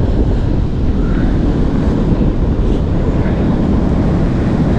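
Steady low rumble of wind buffeting the microphone, mixed with the wash of breaking surf.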